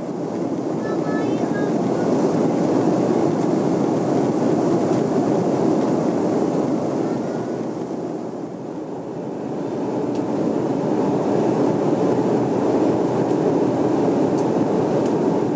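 Steady cabin noise of a jet airliner in cruise, heard from a window seat: a low rushing hum that eases off a little past halfway and then builds again.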